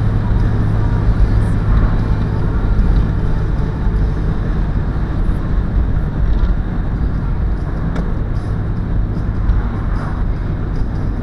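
Mazda MX-5's inline-four engine drones at a steady pitch while cruising, mixed with road and wind noise, as heard from inside the cabin.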